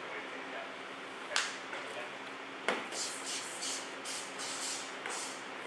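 Karate uniform fabric snapping and swishing as fast strikes and blocks are performed: two sharp snaps a little over a second apart, then a quick run of short swishes.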